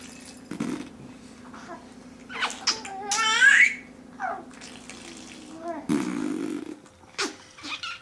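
Silly wordless vocal noises: a squealing voice swooping up and down in pitch midway, and low buzzy blowing sounds at the start and near the end, over a steady low hum.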